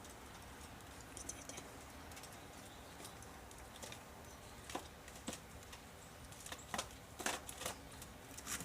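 A squirrel scrabbling at a pine cone: faint scratches and sharp clicks of claws and teeth, sparse at first and coming thicker in the second half.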